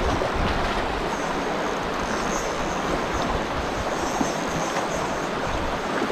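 Steady rush of a shallow river running over rocks.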